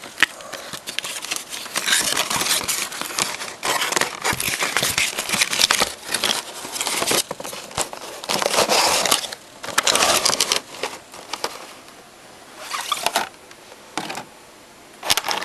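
Toy packaging being worked open by hand: crinkling, tearing and rustling with sharp crackles, dense at first, then in a few short bursts near the end.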